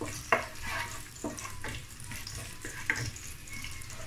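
Sliced garlic sizzling in hot oil, stirred with a wooden spatula that knocks and scrapes against the pot a few times.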